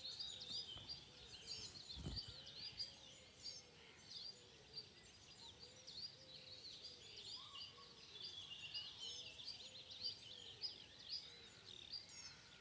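Faint birdsong: many quick, high chirps from several small birds overlapping throughout, with a softer, lower call repeating beneath them.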